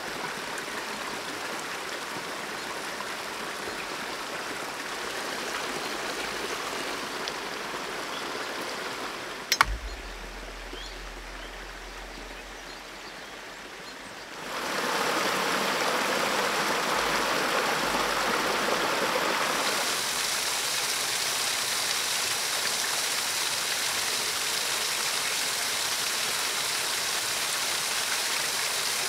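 A forest stream and small waterfall running with a steady rush of water. About a third of the way in there is a single sharp crack, and the water sound is louder from about halfway on.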